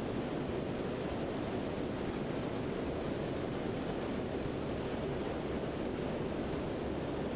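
Steady in-flight cabin noise of a Lockheed C-130 Hercules: an even, low rushing drone of its four turboprop engines and the airflow, with no changes.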